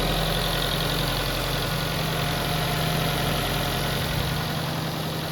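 Nissan Serena engine idling steadily under the hood, its revs easing down smoothly with no hunting. The lowest rumble fades about four seconds in.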